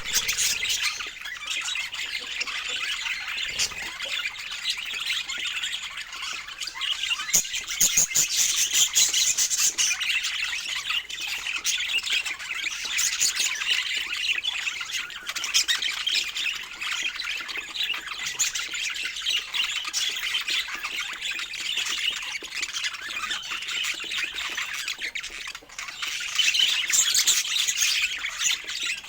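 Budgerigars chirping and chattering without pause in quick, overlapping high calls, with louder stretches about eight seconds in and again near the end.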